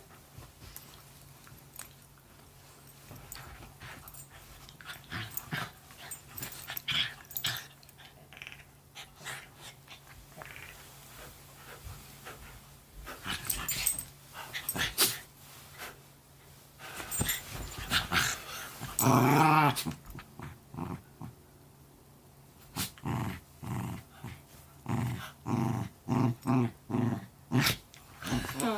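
Poodle-mix dogs play-fighting, with short growls, rustling and soft knocks on the bedding. One longer wavering growl comes about two-thirds of the way through, then a quick run of short growls near the end.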